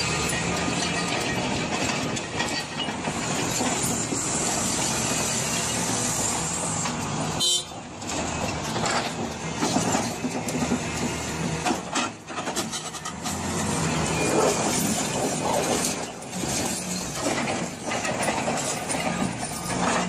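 Large wheel loader's diesel engine running hard while it works in a quarry, a steady heavy machine noise. It breaks off briefly about seven and a half seconds in, then carries on.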